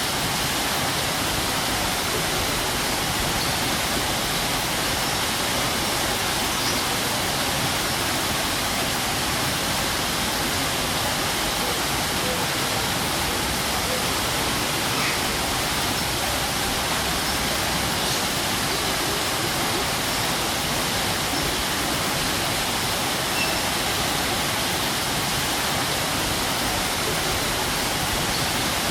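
Strong waterfall: heavy water falling and crashing in a steady, even rush.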